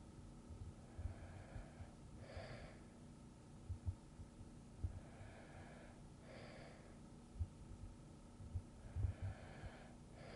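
A person breathing softly and slowly, as in sleep: about three even breath cycles, each a gentler draw followed by a stronger breath, roughly every four seconds. A few faint, brief low thumps sound in between.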